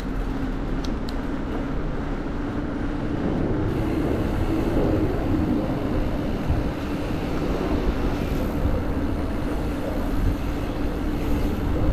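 Vehicle engine running at a steady low speed with a constant hum, mixed with road and wind noise on the microphone.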